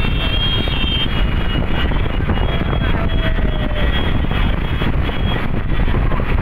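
Many motorcycles and scooters running together in a pack, a steady mass of engine noise heard from a bike riding among them, with faint high tones over it.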